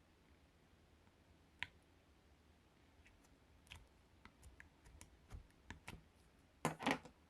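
Slime being handled, making scattered small clicks and pops that come more often as it goes on, with a louder cluster of crackly pops near the end.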